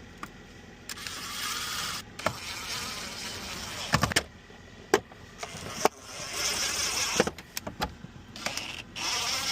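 Sharp clicks and knocks of car parts being fitted back together after an ignition key repair, between stretches of a buzzing whir.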